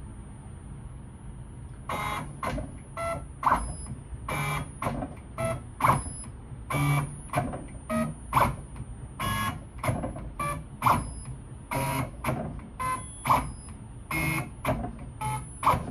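CNC router's stepper motors whining through a run of short axis moves, roughly two a second, starting about two seconds in, as the touch probe is driven back and forth inside a ring gauge to touch off its walls.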